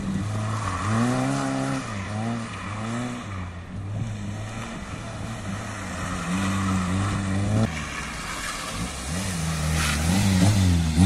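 Citroën AX competition car's four-cylinder engine revving up and down repeatedly as it is driven through a tight slalom, the pitch rising and falling every second or so.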